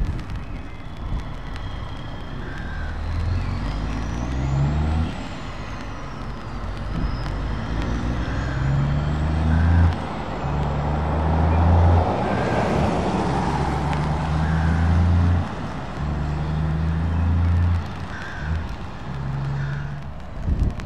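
Heavy truck diesel engines pulling away and accelerating up through the gears, each pull lasting a second or two before it breaks off for a gear change, over a haze of tyre noise on a wet road.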